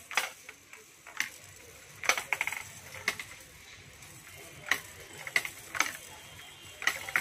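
Small plastic balls clicking and rattling down the spiral plastic ramps of a roll-ball tower toy. The sharp clacks come about once a second as balls are dropped in and land on the tiers, with a quick run of rattles about two seconds in.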